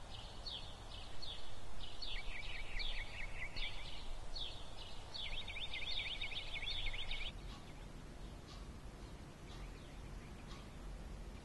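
Songbird chirping outdoors: a series of short, falling chirps, then a fast trill about halfway through that stops about two-thirds of the way in, leaving a quieter background with faint ticks.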